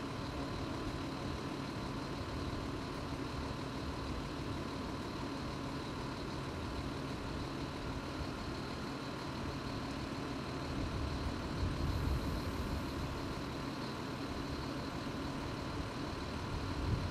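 A heavy engine idling steadily with a constant hum, swelling briefly into a louder low rumble about twelve seconds in.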